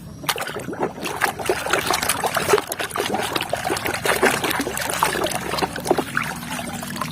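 Water splashing and trickling, with many small clicks and knocks, as a plastic toy vehicle is washed.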